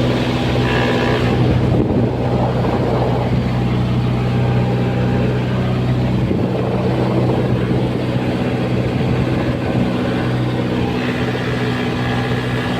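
Mitsubishi L300 engine running steadily during a test run, a constant low hum with a rougher, noisier stretch in the middle.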